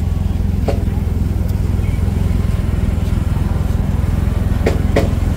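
Steady low outdoor rumble with crowd voices, and a few short sharp sounds about a second in and twice near the end.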